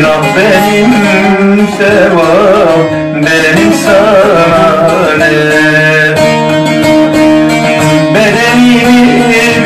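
Bağlama (long-necked Turkish lute) playing a Turkish folk song, with a man's voice singing a wavering, bending melody over it.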